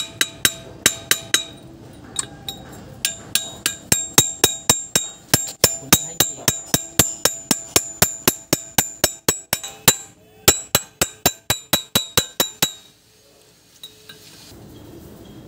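A hammer repeatedly tapping a screwdriver driven into the gap around a Grundfos centrifugal pump's impeller to work it loose, ringing metallic taps at about four a second. The tapping stops near the end.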